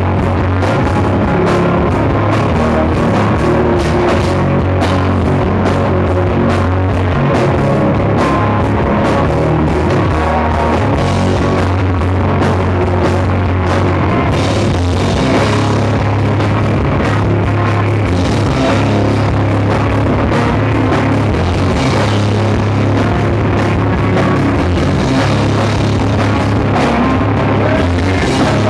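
Rock band playing live: drum kit, guitar and a bass line, loud and unbroken.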